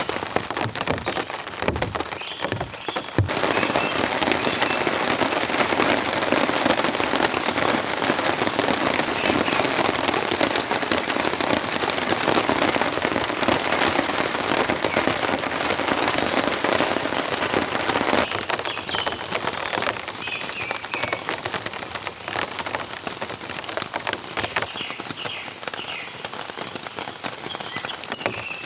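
Heavy rain falling steadily, louder from about three seconds in and softer from about eighteen seconds. A few faint bird calls come through in the second half.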